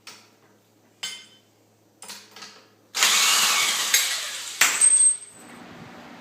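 A few light metal clinks, then about three seconds in a loud harsh burst from a power tool, with a second short burst and a brief high whine, settling into a steady motor hum.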